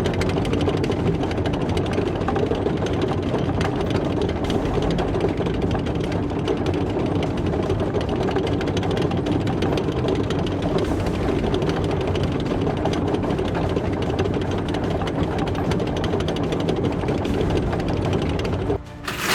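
Cartoon tank engine and tracks running, a dense steady mechanical clatter and rumble. It drops out briefly near the end, then a short hissing burst follows.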